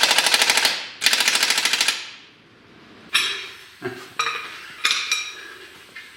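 A pneumatic impact tool hammering rapidly on the control arm's mounting bolt in two bursts, about a second each, then several light metallic clinks and rings of steel parts or tools.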